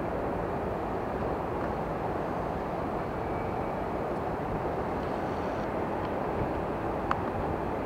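Steady distant roar of a taxiing Boeing 767's jet engines at low power, with a single short click about seven seconds in.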